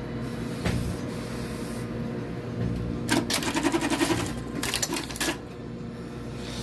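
Sewing machine stitching in two short bursts of rapid rattling ticks, the first about a second long and the second shorter, after a single click near the start.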